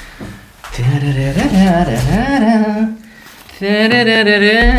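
A man humming a wordless tune in two phrases, with gliding and held notes and a short break about three seconds in.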